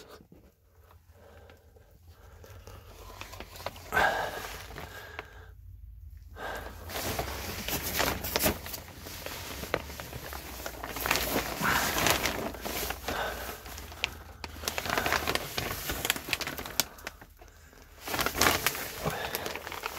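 Plastic vapor-barrier sheeting crinkling and rustling under a person crawling over it, in irregular scuffing bursts that start faint and run more continuously from about six seconds in.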